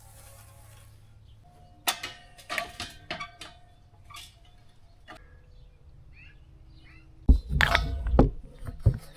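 Sharp metallic clinks and clicks, some with a brief ringing tone, followed about seven seconds in by loud, deep bumps of handling close to the microphone.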